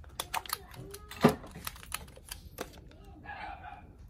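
Clicks and knocks of a plastic cordless drill and its battery pack being handled, with one louder knock about a second in.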